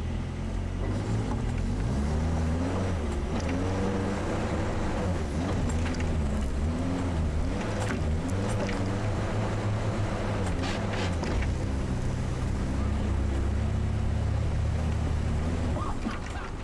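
Sherp ATV's diesel engine running hard while towing, heard from inside its open cab, its pitch rising and falling again and again. Scattered knocks are heard midway.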